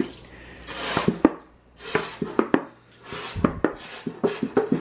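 Hand-held plastic trigger spray bottle being sprayed at a tile floor: two short hissing sprays, about a second in and about three seconds in, among sharp clicks and knocks.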